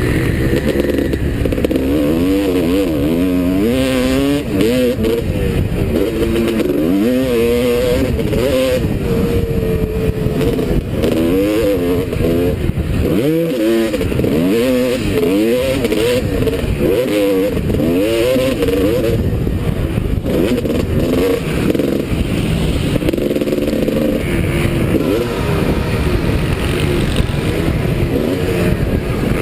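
Several motocross bikes racing, their engines revving up and down in overlapping rising and falling notes.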